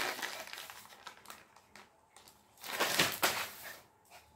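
Crinkling and crackling of a plastic packet as a Pomeranian bites and tugs at it, with a louder rustling burst about three seconds in.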